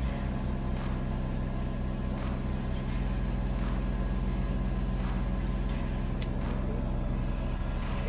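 Kubota BX23s compact tractor's three-cylinder diesel engine running steadily while powering the backhoe, its note shifting slightly about three seconds in. A few light clicks sound over it.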